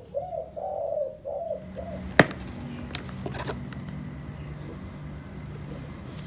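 A dove cooing, a short run of low coos over the first second and a half. About two seconds in comes one sharp click, then two fainter clicks, over a faint steady low hum.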